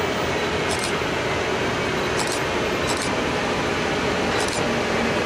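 Siemens Vectron locomotive hauling a train of tank wagons, approaching slowly with a steady running noise and hum. Several short high hisses sound through it, and a lower hum sets in about four and a half seconds in.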